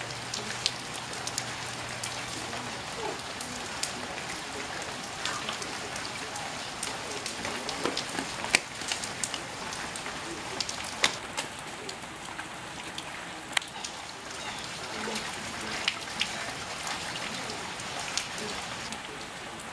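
Light rain falling on puddles and wet pavement: a steady patter scattered with sharp drip ticks.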